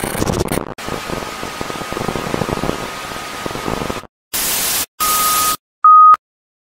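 TV static sound effect: a hiss of white noise with a faint steady tone through it, which cuts out about four seconds in. Two short bursts of static follow, then a short, loud test-tone beep.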